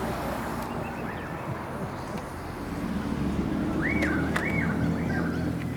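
Wind buffeting the microphone over a steady low hum, with a few short rising-and-falling bird calls about four seconds in.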